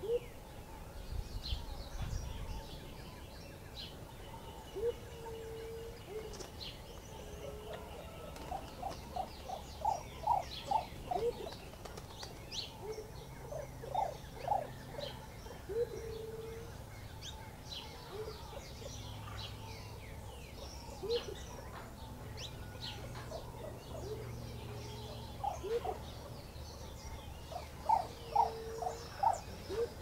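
Birds calling: several bursts of short, quickly repeated low notes, about a third of the way in, near the middle and near the end, with single low calls between them and scattered high chirps.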